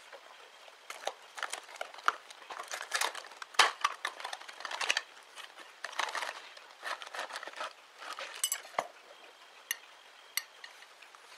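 Plastic packaging crinkling and crackling in the hands as it is unwrapped, with irregular sharp clicks and light clinks against a china plate. The crackling dies down near the end, leaving a few separate clicks.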